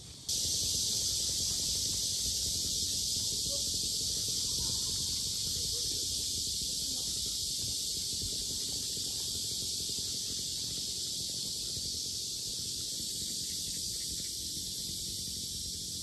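A loud chorus of cicadas making a steady, dense high-pitched buzz that comes in suddenly just after the start and barely changes, with a low rumble underneath.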